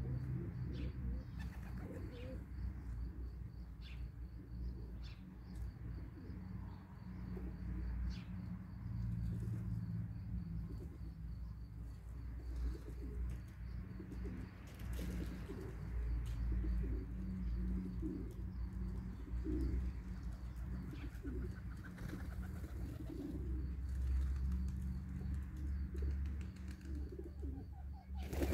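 Domestic white pigeons cooing now and then over a steady low rumble. Near the end comes a sudden loud clatter of wings as the flock takes off.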